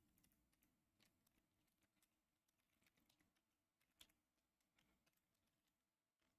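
Very faint computer keyboard typing: a few scattered keystroke clicks, the clearest about four seconds in.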